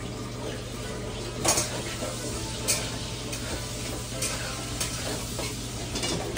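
Spatula stirring frying potato-and-aubergine sabzi in a kadhai, over a steady sizzle, with a few sharp clinks and scrapes against the pan.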